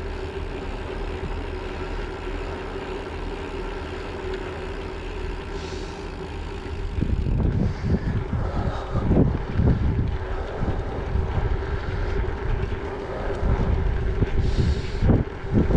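Bicycle riding on asphalt: tyre and road noise with wind buffeting the handlebar-mounted microphone. From about seven seconds in the wind gusts grow louder and more uneven. A faint steady hum runs underneath.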